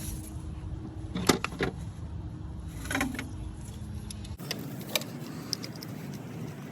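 A few sharp metallic clicks and clinks from hand tools and bolts while fitting a boost solenoid in an engine bay, over a steady background hum. The background changes abruptly about two-thirds of the way through.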